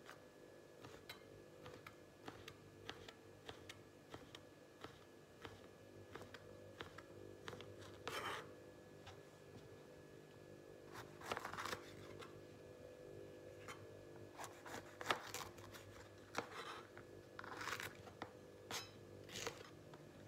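Small kitchen knife cutting bacon and then green bell pepper on a cutting board: light knocks of the blade on the board, and in the second half several short crisp slicing sounds as it goes through the pepper. A faint steady hum lies underneath.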